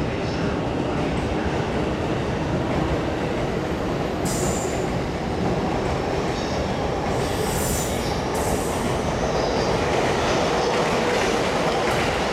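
A JR E531 series electric multiple unit running on the tracks with a steady rumble of wheels on rail. Brief high-pitched wheel squeals come about four seconds in and again around seven to eight seconds.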